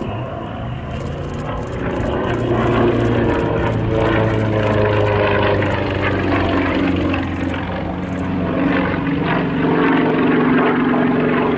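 Yak-50 aerobatic plane's nine-cylinder radial engine and two-blade propeller running hard through aerobatic manoeuvres. The note sags slowly in the middle and climbs again near the end.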